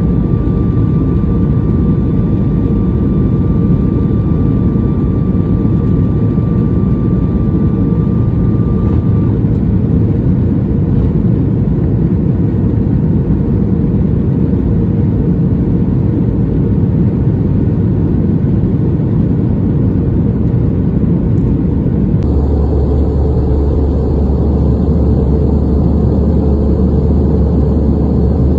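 Steady cabin noise of a Sukhoi Superjet 100 in flight: the PowerJet SaM146 turbofans and the rush of air heard from a window seat. A faint steady whine stops about a third of the way through, and a deeper hum sets in near the end.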